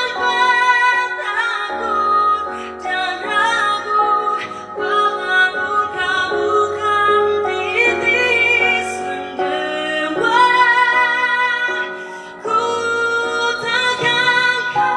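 A woman singing a ballad over instrumental accompaniment. She holds long notes with a wavering pitch, and there is a short dip in the singing about twelve seconds in.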